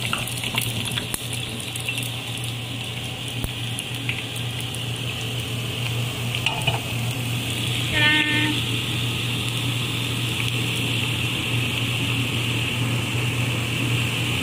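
Hot rendered pork lard sizzling steadily around freshly fried pork cracklings, still bubbling after the heat is turned off, over a steady low hum. A brief pitched ring sounds about eight seconds in.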